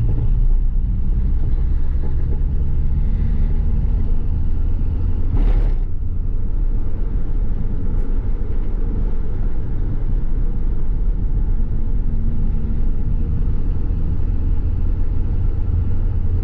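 Carbureted 1.6 CHT engine of a VW Gol quadrado with a mini turbinho exhaust, droning steadily while the car drives on the road. A short whoosh cuts through about five and a half seconds in.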